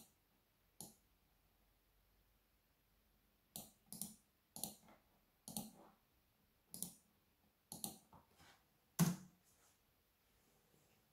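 Irregular clicks of a computer mouse and keyboard keys, about a dozen spread over several seconds, the loudest about nine seconds in.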